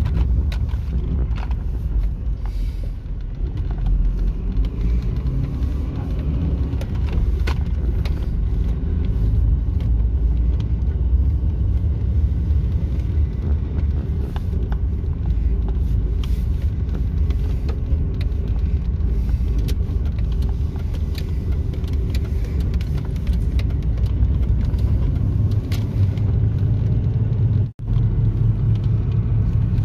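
A 2001 Ford Mustang driving, heard from inside the cabin: steady low engine and road rumble. It drops out for an instant near the end.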